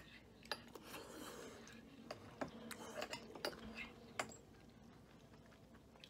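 Faint, scattered light clinks and taps of tableware, about ten of them, mostly in the first four seconds.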